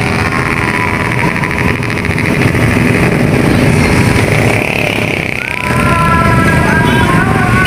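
A stream of motorcycles and scooters passing close by, engines running, with people's voices mixed in.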